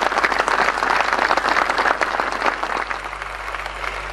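Large crowd applauding: dense, continuous clapping from many hands, easing slightly about three seconds in.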